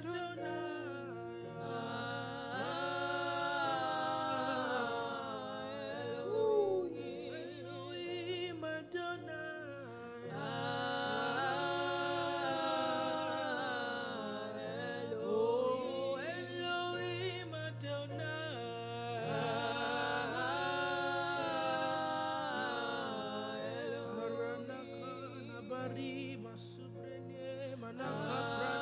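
Worship song: a voice singing long, held phrases that slide between notes over a steady, sustained low accompaniment.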